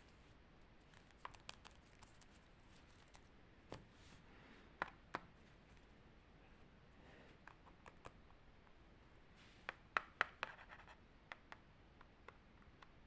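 Paper pieces and stickers being handled: scattered light taps and clicks with short scratchy paper rustles, the sharpest cluster of clicks about ten seconds in.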